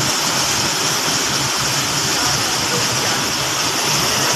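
Waterfall pouring: a steady rushing of falling water.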